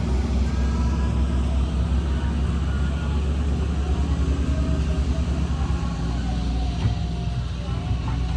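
Heavy diesel engine running steadily under load with a deep, even drone, from the truck or excavator at work.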